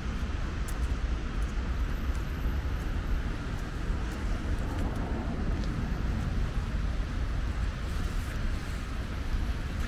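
Steady outdoor street ambience: wind rumbling on the microphone over a constant hum of traffic.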